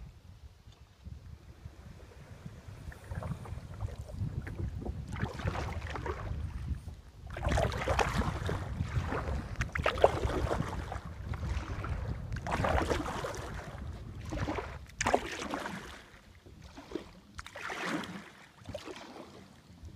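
Kayak paddle strokes dipping and splashing in the water, about one every two to three seconds, over a low rumble of wind on the microphone.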